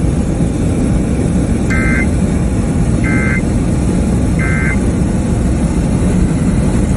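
Three short warbling data bursts, about a second apart, of an Emergency Alert System end-of-message code, closing a broadcast National Weather Service tornado warning. Beneath them runs the steady road noise of a car driving on a wet highway.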